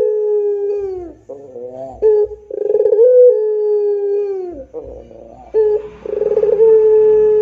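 A ringneck (Barbary) dove cooing in full voice with the long-drawn 'pelung' coo. Each coo begins with a short rolling warble, holds a long low note, then slides down at the end. One coo ends about a second in, a full coo follows, and another starts near the end, with short clipped notes between them.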